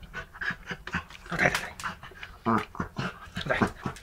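A dachshund making short, irregular vocal sounds and scratching and knocking as it paws and mouths a whole watermelon.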